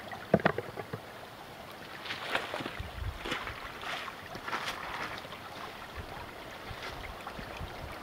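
Wood campfire crackling, with scattered sharp pops, over the steady rush of a shallow creek.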